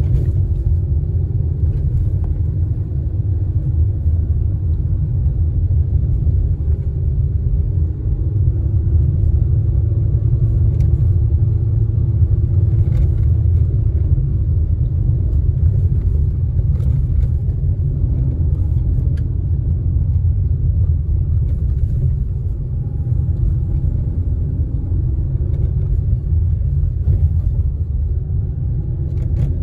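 Car driving on a dirt road, heard from inside the cabin: a steady low rumble of engine and tyres, with a few light ticks now and then.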